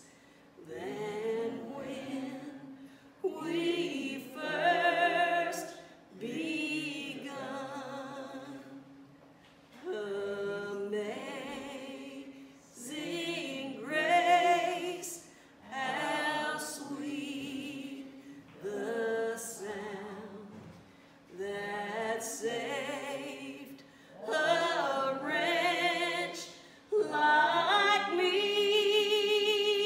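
A woman singing a gospel hymn unaccompanied, in phrases of a few seconds with vibrato on the held notes and short breaths between them.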